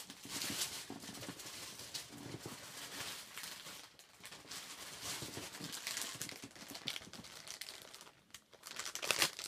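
Plastic packaging bag crinkling and rustling in irregular bursts as it is handled, with a louder crackle near the end.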